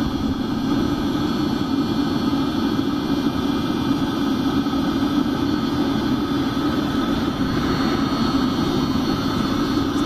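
Webasto diesel air heater running at the end of its startup sequence, going into full load: a steady low rumble from its combustion air fan and burner flame.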